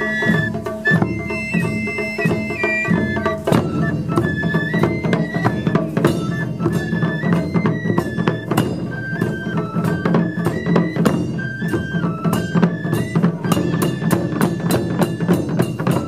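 Japanese taiko drum ensemble with shinobue bamboo flutes playing a stepped melody over steady drum strokes. The drumming turns to quick, even strikes near the end.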